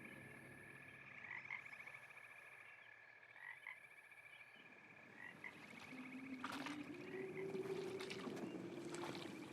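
Faint frog chorus, a steady pulsing croaking trill. About six seconds in, a low steady hum comes in, along with a few faint clicks.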